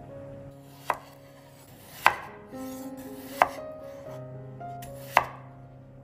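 Knife cutting baby potatoes in half, four sharp chops spaced a second or more apart, over soft background music.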